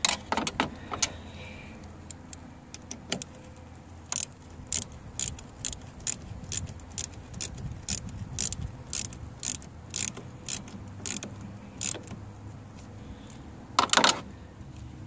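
Hand ratchet clicking on its back-swings, about two clicks a second, as it snugs down the Torx screws of a fuel filter housing lid. A louder clatter of the tool comes at the start and again near the end.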